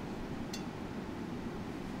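Steady low hum and hiss of the church's room tone, with one faint click about half a second in.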